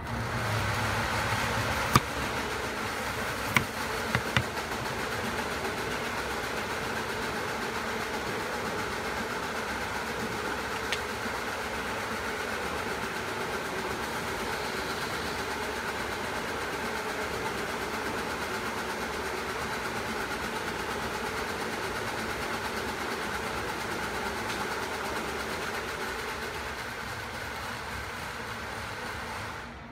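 A few sharp knocks of a knife chopping on a wooden board in the first few seconds, over a steady buzzing drone that runs throughout and fades near the end.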